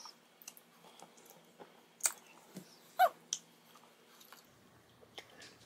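Quiet, scattered sucking clicks and lip smacks on a baby's pacifier, with one short squeak falling in pitch about three seconds in.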